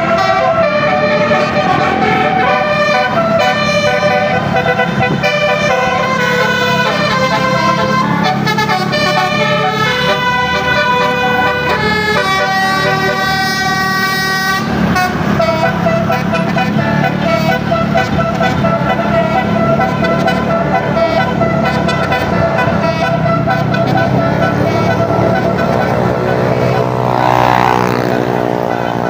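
Indonesian 'telolet' multi-tone bus horn playing quick melodic runs of notes, stepping from tone to tone over the steady rumble of a bus engine. Near the end a horn tone sweeps up and back down.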